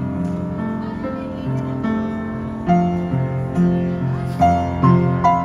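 Background music: a slow piano tune of held chords, with new notes struck every half second or so in the second half.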